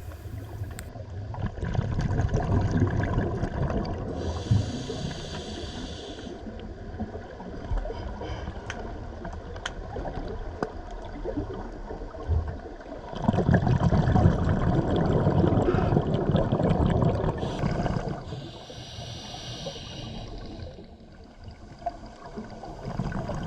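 A scuba diver breathing underwater through a regulator, twice over: exhaled bubbles gurgling and rumbling, then the hiss of an inhalation through the demand valve.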